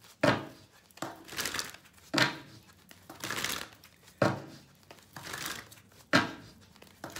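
A deck of tarot cards being shuffled by hand: repeated crisp rustling bursts, the strongest about every two seconds.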